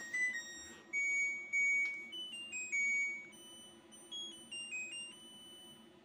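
LG E10B8ND5 front-loading washing machine's beeper playing its end-of-cycle melody, a tune of high electronic beeps stepping up and down in pitch, signalling that the wash programme has finished. The tune is softer in the second half.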